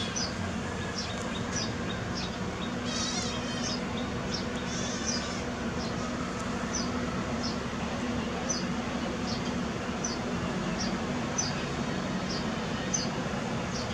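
Kittens mewing briefly, twice, with thin high wavering calls about 3 and 5 seconds in. Under them, a short high chirp repeats about once a second over a steady low hum.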